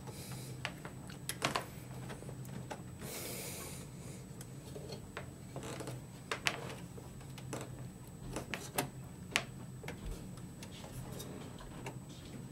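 Hands handling parts inside an open desktop computer case: scattered light clicks and taps of metal and plastic, with a brief rustle about three seconds in, over a low steady hum.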